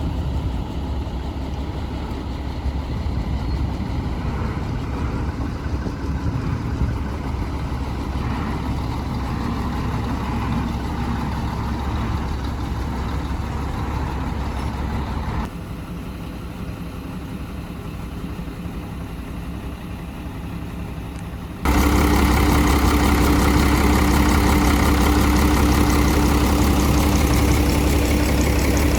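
Heavy diesel engine running steadily. The sound drops abruptly to a quieter level about 15 seconds in, then jumps louder about 22 seconds in, with a steady low hum.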